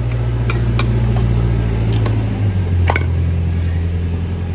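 A steady low machine hum that steps down in pitch about halfway through, with several short sharp metallic clicks from the electric hub motor's cover and stator being handled.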